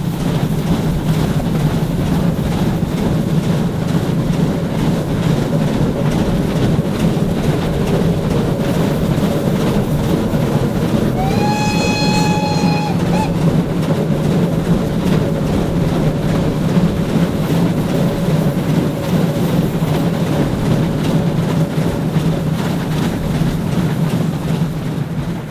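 Steam locomotive-hauled train running steadily. Around the middle the locomotive's steam whistle gives one blast of about two seconds.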